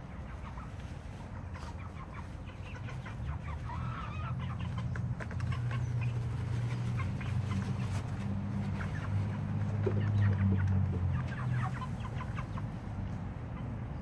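Chickens clucking in short, scattered calls, over a low steady hum in the background that swells through the middle and eases off.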